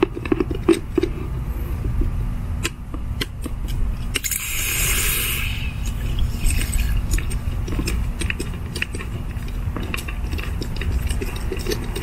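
Trapped water pressure hissing out from under a Hunter sprinkler valve's bonnet as its screws are loosened, with the strongest burst of hiss about four seconds in and a weaker one soon after. Small clicks of handling run through it over a steady low rumble.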